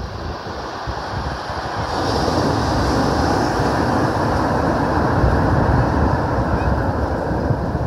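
Sea surf breaking on a shingle beach: the noise swells about two seconds in as a large wave breaks and crashes onto the shore, then stays loud.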